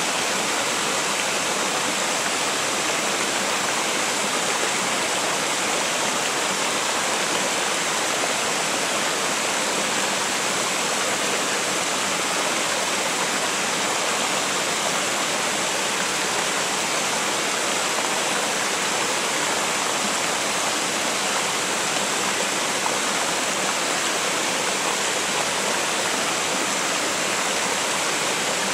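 Shallow mountain river spilling over a low stepped weir and running across flat rocks: a steady, unbroken rush of water.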